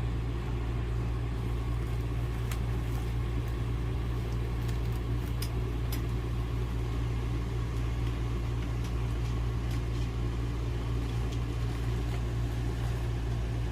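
A steady low mechanical hum, such as an engine or air-conditioning unit running, with a few faint clicks and taps.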